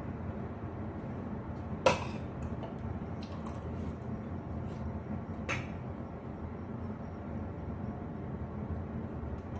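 Spoon clinking against the dishes while eating: one sharp clink about two seconds in, another a little past the middle, and a few faint ticks, over a steady low background hum.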